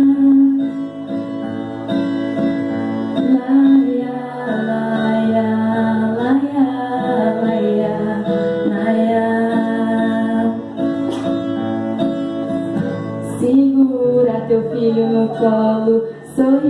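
Music: an acoustic guitar playing steadily, with a voice singing held notes and no words.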